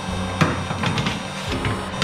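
Background music: a melody of short pitched notes over sharp percussive hits.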